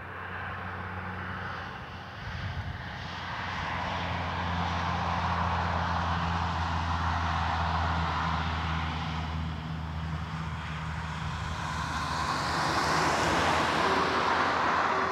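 A car driving over the crossing, its engine hum and tyre noise swelling and fading. Near the end the crossing's AWD 2000 electronic warning bell starts with a steady tone, the signal that the crossing has been activated for an approaching train.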